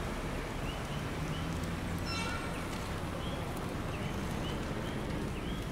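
Coquí frogs calling at night: short rising chirps repeated every half second or so, over a steady low hum, with a brief rapid rattle about two seconds in.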